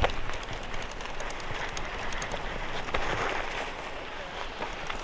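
Bicycle tyres rolling over sand and dry plant litter: a steady crunching hiss with many small crackles and clicks. Wind rumbles low on the microphone.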